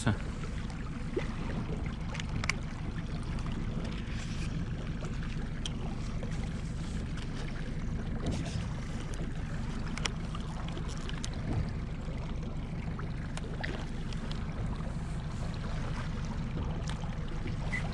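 Yamaha outboard motor running steadily at slow trolling speed, a low hum, with water lapping and trickling along the hull and a few faint clicks.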